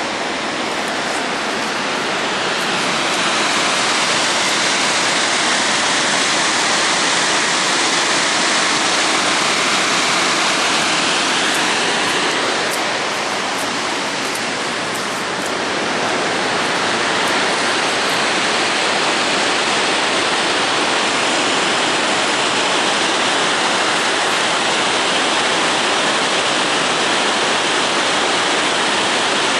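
Steady rushing of a mountain waterfall, a loud even noise of falling water with no break, dipping slightly about halfway.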